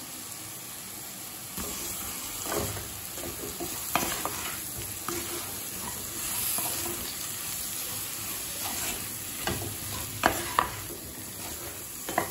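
Mushrooms, capsicum and onion-tomato masala sizzling in oil in a kadai. From about a second and a half in, a spatula stirs them, with scattered scrapes and knocks against the pan.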